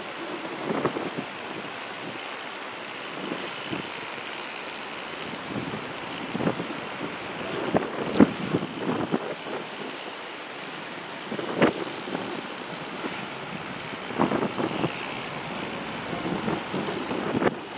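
Outdoor harbour ambience: a steady background noise with irregular gusts of wind buffeting the microphone.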